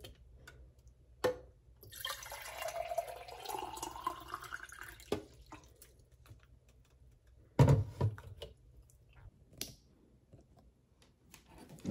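Water poured from a plastic pitcher into a drinking glass, after a light click; the pitch of the pour rises as the glass fills over about three seconds. A single short thump follows a little later.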